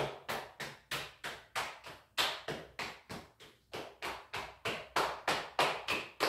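Hands tapping rhythmically down and up the legs in qigong self-massage, about three pats a second, with a short break about three seconds in.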